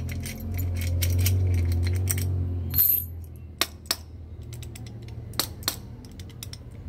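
Metal clinks and clicks from a steel padlock and its keys being handled: a short bright metallic ring about three seconds in, as of keys set down on concrete, then four sharp clicks in two pairs from the padlock.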